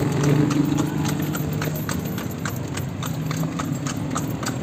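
A horse's hooves clip-clopping steadily on a paved road as it pulls a kalesa, a horse-drawn carriage, about four hoofbeats a second over a low rumble.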